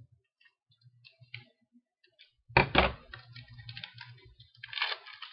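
A trading-card pack's wrapper being opened by hand: two sharp cracks about two and a half seconds in, then crinkling of the wrapper, loudest near the end.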